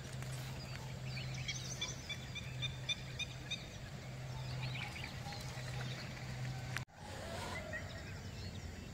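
Faint outdoor background: a small animal's quick, repeated high chirps for a couple of seconds, over a low steady hum that stops abruptly about seven seconds in.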